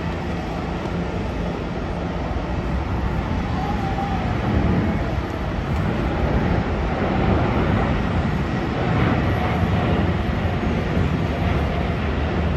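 Jet airliner engines heard from the airport surroundings: a steady rushing noise with a deep rumble, swelling slightly about four seconds in and then holding.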